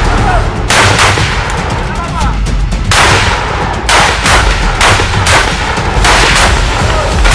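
Rifles firing single shots from a prone firing line: about ten sharp cracks at uneven intervals, some close together, each followed by a short echo.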